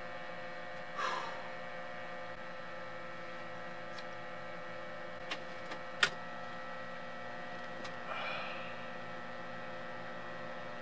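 Steady electrical hum with several held tones, from the power inverter running a deep freeze. A few faint ticks and one sharp click come about six seconds in, with two soft breath-like rustles, one about a second in and one later on.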